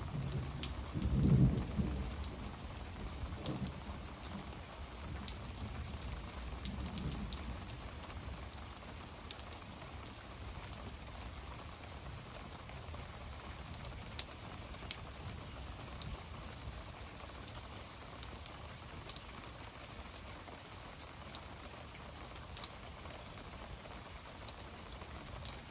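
Steady rain with scattered drops ticking close by. A low rumble of thunder swells about a second in and fades away over the next several seconds.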